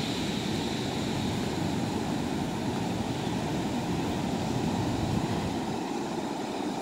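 Surf from big waves breaking, heard as a steady wash of noise.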